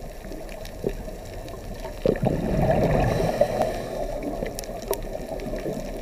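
Aquarium water bubbling and gurgling from an air stone. It gets louder suddenly about two seconds in.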